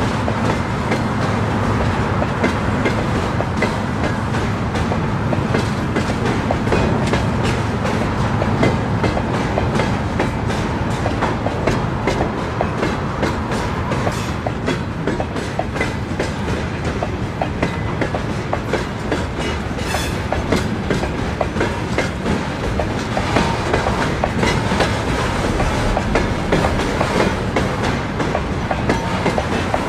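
Freight train rolling past at speed: steady rumble of the wagons, with the wheels clicking over the rail joints in quick repeated groups.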